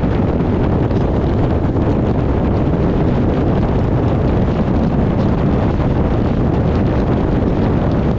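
Wind buffeting the microphone: a steady, loud low rumble with no breaks.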